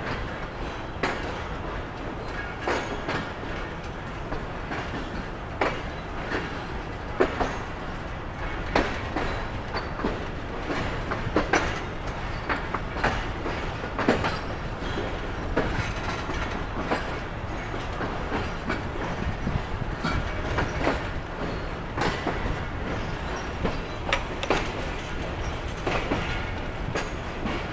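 Passenger train coach wheels rolling slowly over the track as the train departs a station: a steady rumble with irregular clicks and clacks as the wheels cross rail joints and points.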